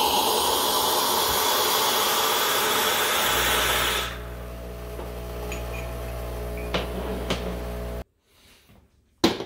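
Hot water hissing and sputtering out of an ECM Mechanika V Slim espresso machine's hot-water wand into a ceramic cup for about four seconds. As the flow stops, the machine's pump hums steadily while it refills the boiler, and it cuts off suddenly; a sharp click follows near the end.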